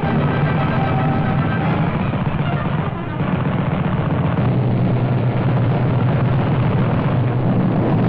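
Aircraft engine drone on an old newsreel soundtrack, steady and dense, dipping briefly about three seconds in.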